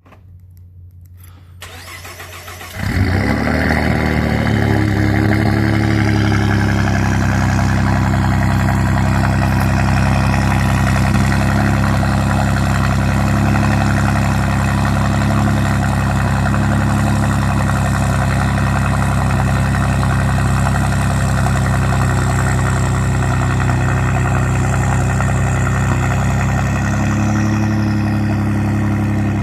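Cold start of a Ford EcoBoost engine with catless downpipes and a resonator-delete Corsa exhaust. The starter cranks briefly, and the engine catches just under three seconds in. It settles into a loud, steady, throaty cold idle. Near the end a high whistle glides down in pitch.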